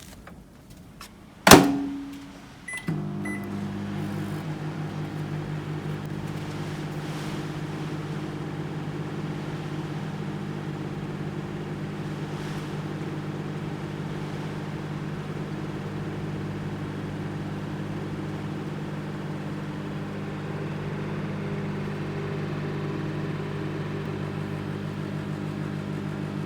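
Anko 700-watt microwave oven: the door shuts with a sharp clack, two short keypad beeps sound, then the oven runs with a steady low hum for the rest of the time.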